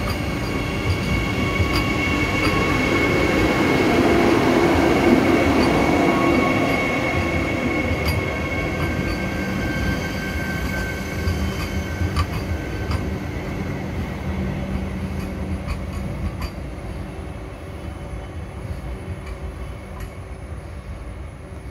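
Vande Bharat Express electric trainset rolling slowly past on the rails while being shunted. Its wheels run with a steady high-pitched whine and a few sharp clicks. The sound swells for the first few seconds, then fades as the last coach moves away.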